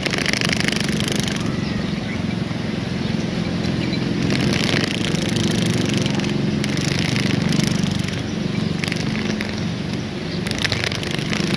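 Insect wings buzzing in a steady low drone, with bouts of higher rasping flutter coming and going several times.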